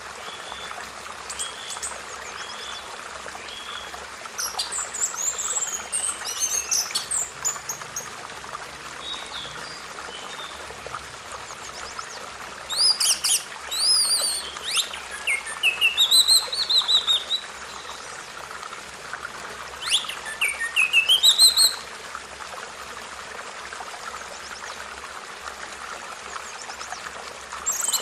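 Birds chirping and singing in several separate bouts of quick rising and falling notes, over steady background noise.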